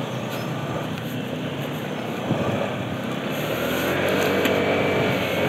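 Vehicle under way: steady engine and road noise, the engine note rising as it speeds up in the second half.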